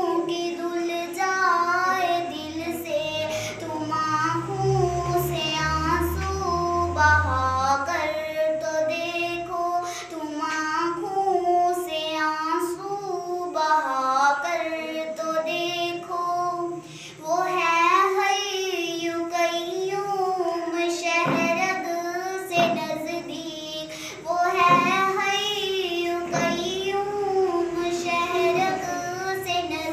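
A young girl singing a naat, an Islamic devotional song, solo and unaccompanied, in long phrases with a wavering melody.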